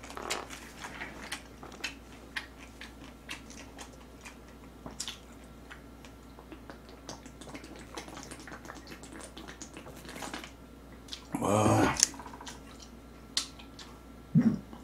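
Close-up eating sounds: many small wet clicks of chewing and swallowing, with swigs from a large plastic drink bottle. About eleven and a half seconds in comes a loud, short vocal exhale, and two brief grunts follow near the end.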